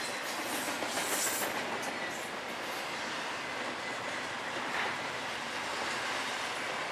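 Double-stack intermodal container cars of a CSX freight train rolling past: a steady rush and rattle of steel wheels on rail, with a brief high screech about a second in.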